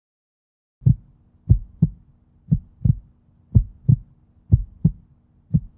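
Heartbeat sound effect: low double thumps, lub-dub, about once a second, starting about a second in, over a faint steady hum.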